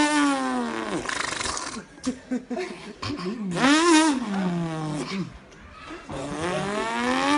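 A man imitating a car engine with his voice: revving engine noises that rise and then fall in pitch three times, with a hissing rush in the first two seconds, a mouth impression of a car starting up.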